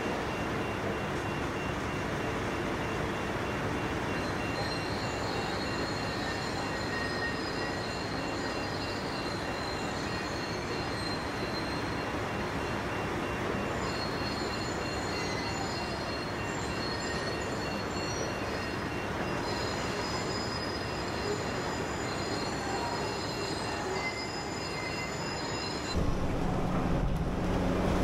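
Large demolition excavator running: a steady machinery din with high-pitched metallic squeals that come and go. Near the end it changes abruptly to a louder, deeper hum.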